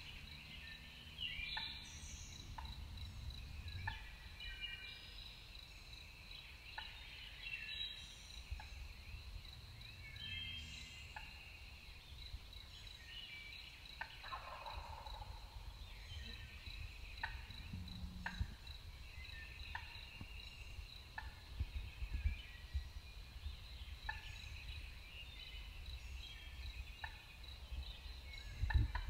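Animal calls in woods at dusk: many short bird-like calls over a steady high chirping that repeats about twice a second, with one longer falling call about halfway through.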